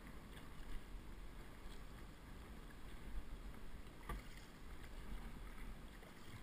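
Open canoe being paddled on a calm river: paddle strokes and water swishing along the hull over a steady low rumble, with one light knock about four seconds in.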